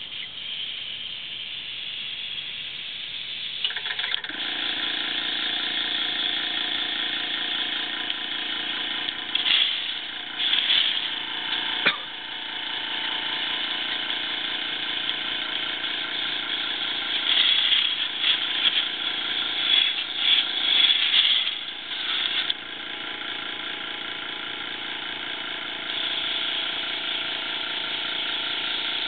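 Airbrush spraying paint with a steady hiss, over a small air compressor that starts up about four seconds in and then runs steadily. The spraying grows louder in spurts around ten seconds in and again between about eighteen and twenty-two seconds, with a sharp click in between.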